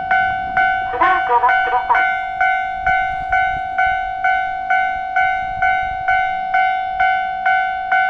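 Japanese railway level-crossing alarm ringing with its electronic bell, a steady 'kan-kan' a little over twice a second. About a second in, the crossing's recorded voice speaks a brief warning over the bell.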